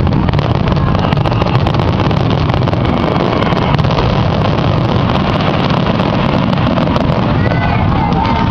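Fireworks finale: a dense, continuous barrage of bursts and crackling that blends into a steady low rumble.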